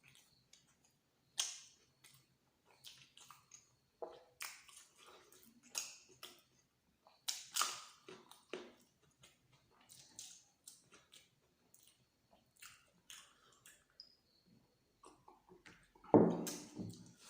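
Close-miked eating sounds: irregular chewing, lip smacks and wet mouth clicks from someone eating luchi with egg masala, with a louder, fuller mouth sound about sixteen seconds in.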